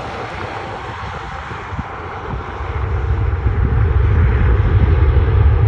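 Jet airliner engines running, a steady rumble that grows louder about halfway through.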